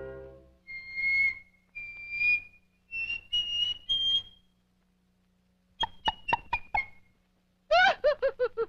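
Cartoon soundtrack: five short whistle-like notes climbing step by step in pitch, a brief pause, then a quick run of short notes stepping down, ending in a fast warbling slide downward.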